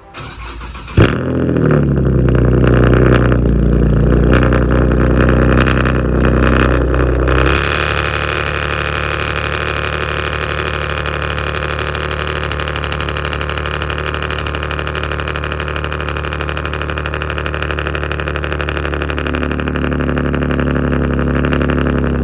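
Cold start of a Nissan 370Z's 3.7-litre VQ37 V6: a brief crank, the engine catches with a loud flare about a second in, then holds a high fast idle. About seven seconds later the idle drops to a lower steady running note.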